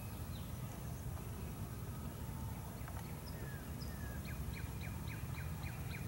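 Wind rumbling on the microphone, with a bird singing faintly behind it: a few short chirps and slurred notes about three seconds in, then a quick run of about eight repeated notes near the end.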